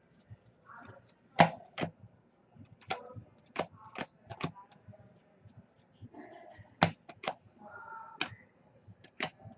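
Irregular sharp clicks and snaps of trading cards being handled and set down on a table, about a dozen in nine seconds.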